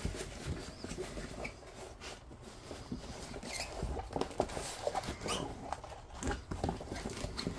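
Diamond painting canvas being rolled by hand against a table: light rustling and crackling of its plasticky canvas, with small scattered clicks.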